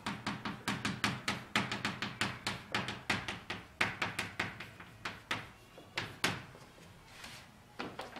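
Chalk writing on a blackboard: a quick run of sharp taps and short strokes, about three or four a second, thinning to a few isolated taps after about six seconds.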